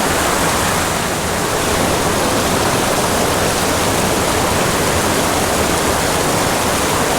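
Small mountain creek rushing steadily over rocks into a pool, an even, unbroken water noise.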